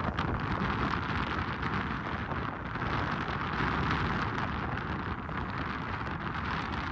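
Strong wind blowing across the microphone: a steady, dense rushing noise.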